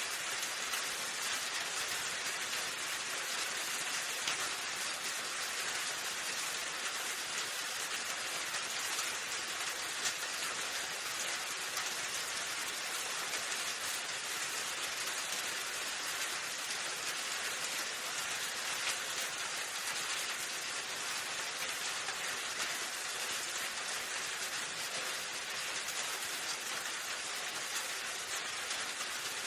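Steady rain, an even hiss with faint ticks of drops striking a surface.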